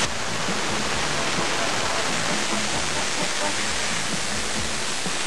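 CO2 gas hissing steadily out of a 7 oz constant-air paintball cylinder as the needle valve in its end is held open. The tank is being blown off to chill it so that it will take a full fill of liquid CO2.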